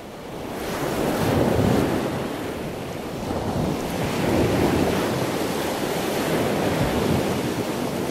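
Small ocean waves washing onto a sandy beach, the rush swelling and easing a few times, with wind buffeting the microphone. The sound fades in over the first second.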